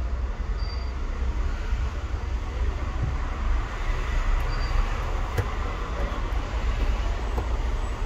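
Steady low rumble of background noise, with a sharp click about five seconds in from metal tweezers on the phone's frame.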